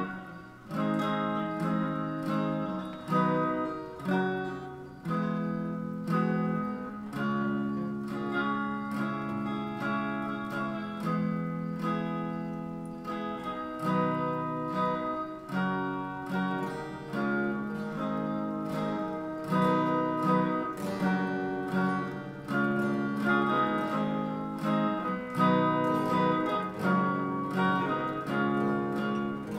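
Guitar music: a guitar picked and strummed in a continuous flow of plucked notes, several each second.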